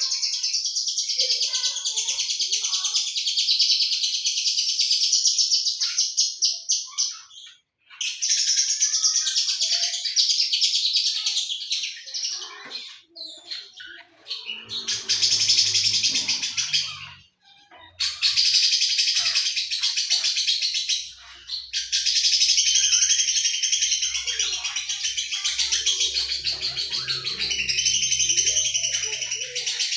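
Lovebird singing in long bouts of fast, continuous high chatter (the 'sewing machine' style), each run lasting several seconds with brief pauses between, four of them.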